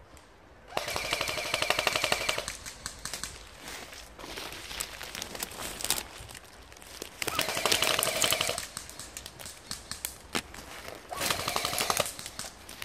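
Airsoft gun firing on full auto in three bursts of rapid shots, each about one to two seconds long. The second burst comes about five seconds after the first, and the third a few seconds later still.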